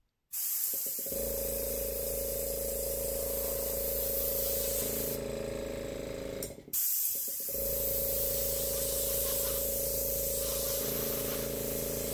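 Airbrush blowing a steady hiss of air across wet acrylic pour paint, with the steady hum of its small compressor motor underneath. The air cuts out for about a second just over six seconds in, then starts again.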